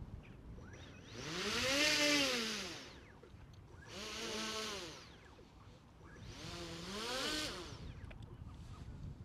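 Autonomous RC boat's electric thruster motors throttled up and back down three times in manual control, each a whine that climbs and falls in pitch over about a second and a half.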